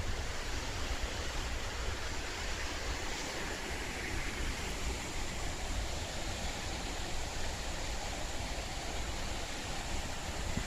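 Rushing whitewater: a steady, unbroken noise with a heavy low rumble underneath.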